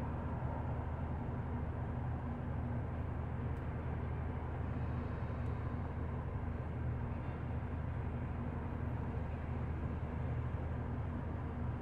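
City bus running steadily, heard from inside the passenger cabin: an even low engine hum under a constant wash of road and running noise.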